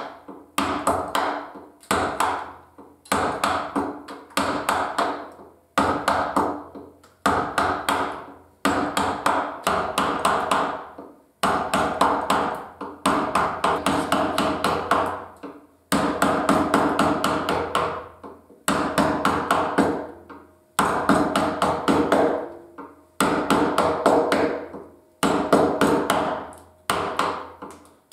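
Wooden mallet tapping a carving gouge into cherry wood, many quick light strikes in runs of about a second, a fresh run every second and a half or so.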